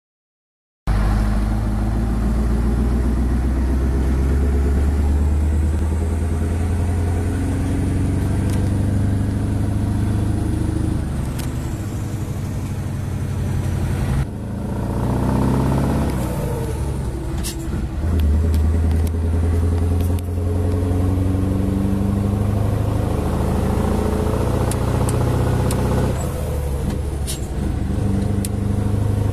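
Scania 164 truck's V8 diesel engine running while driving, heard from the cab; it starts about a second in. About halfway through the revs dip and climb again, and a few sharp clicks are heard.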